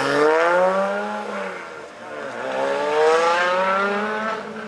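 Supercharged Lotus sports car engine revving hard as the car accelerates away, its pitch rising, easing off about a second and a half in, then a second rising pull from about two seconds in.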